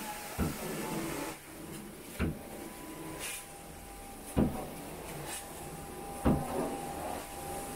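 Four dull knocks, about two seconds apart, over the steady hum and hiss of running carpet-cleaning equipment.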